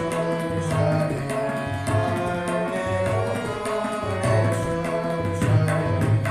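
Tabla playing a steady rhythm, the bass drum giving low pitched strokes, over held harmonium notes.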